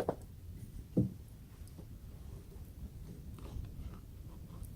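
Two short, sharp knocks about a second apart as a pocket knife is handled against the steak, then faint steady background noise.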